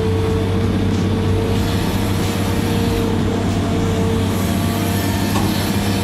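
Excavator's diesel engine running revved up, heard from inside the cab, as the hydraulics curl the bucket in toward the machine. A steady low hum with a steady whine above it.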